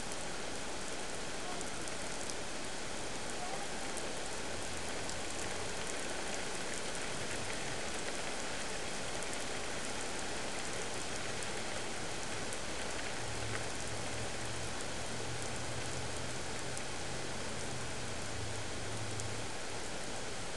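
Heavy rain falling steadily, pattering on surfaces, over the steady rush of a flooded creek. A faint low hum comes in about four seconds in and again for several seconds before the end.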